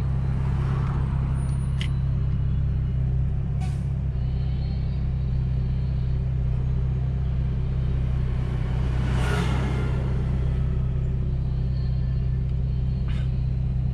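Steady low drone of a car engine and road noise at a constant cruise, with no revving. A brief swell of noise about nine seconds in, and a few faint clicks.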